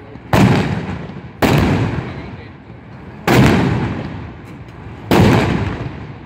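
Old black-powder guns fired one at a time down a line of shooters: four loud shots, one to two seconds apart, each followed by a long rolling echo that slowly dies away.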